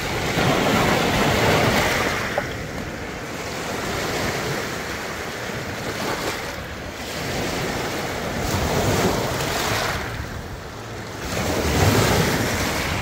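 Small lake waves washing in over a pebble beach, the surf swelling and ebbing every few seconds.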